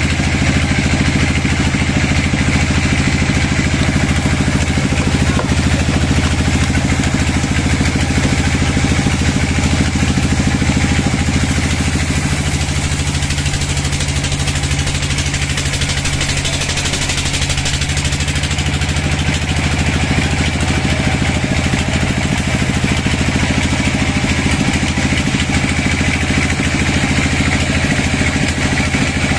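Large vertical band sawmill running steadily as its blade rips a big log lengthwise into a long slab: a continuous engine-like drone under a sawing hiss. The hiss grows brighter for a few seconds midway.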